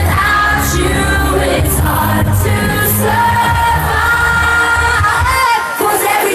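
Live dance-pop music, loud: a singer holds long notes over a heavy, steady bass beat. The bass drops out for a moment near the end.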